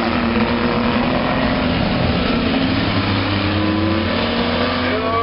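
Several stock-car race engines running at speed, a steady loud blend of engine noise, with one engine note rising slightly past the middle as a car accelerates.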